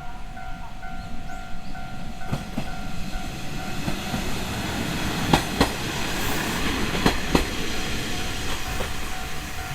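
Watarase Keikoku Railway WKT-520 series diesel railcar passing over a level crossing, its wheels clicking over the rail joints in three pairs of sharp clicks. The crossing's warning alarm keeps beeping steadily; it is drowned out while the train goes by and comes back clearly near the end.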